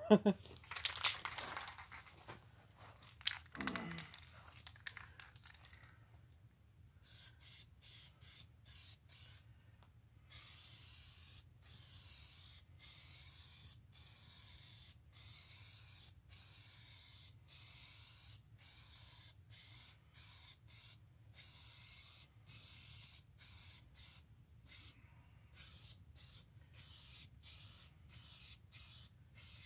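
Aerosol spray paint can spraying yellow paint onto a steel tractor wheel center: a long series of hissing bursts with short gaps between them. The bursts start about seven seconds in, quick at first, then about a second each.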